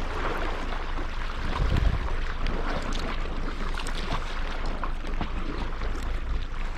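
Wind rumbling on the microphone over the steady wash of sea water at the shore, with small scattered clicks.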